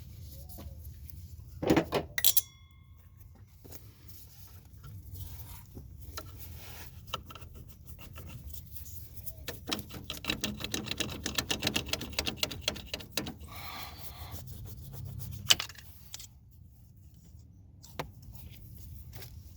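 Metal parts and hand tools being handled: a couple of sharp metallic clanks about two seconds in, the last one ringing briefly, then a long run of rapid clicking in the middle, and a few single knocks near the end.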